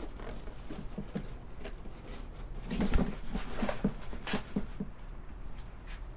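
Packaging being handled and rummaged through: scattered light rustles, taps and clicks, busiest about three seconds in.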